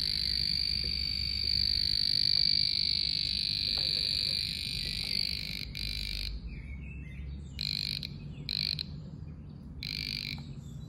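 Aneng VD806 non-contact voltage tester's buzzer beeping with a high-pitched tone, sounding steadily while the pen's tip is held at the live extension-cord socket, a sign that it is picking up AC voltage there. About five seconds in, the tone breaks into short separate beeps as the pen is moved away from the socket and the detected field weakens.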